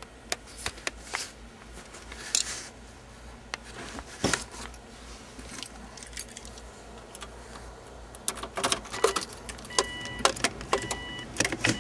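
A car key ring jangling and clicking as the key is put into the 2004 Subaru Impreza's ignition. From about ten seconds in, the car's warning chime beeps about once a second.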